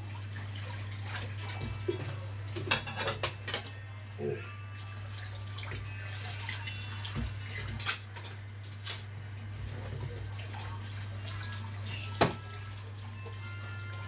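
Cutlery and dishes clinking now and then over a steady low hum, with a cluster of clinks about three seconds in and one sharp clink near the end.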